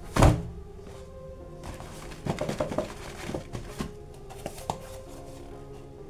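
Background music, with a loud thump of cardboard boxes about a quarter second in, then a run of light taps, scrapes and rustles as a cardboard toy box is handled and its end flap pulled open.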